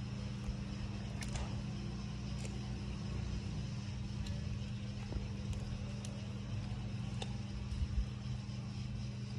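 A steady low hum of a running motor, unchanging in pitch, with a few faint clicks scattered through it.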